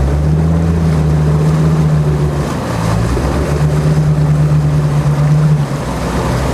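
Land Rover Defender 90's Td5 five-cylinder turbo-diesel running steadily under load while wading a fast-flowing river, its note dipping briefly about two and a half seconds in and then picking up again, over the wash of water.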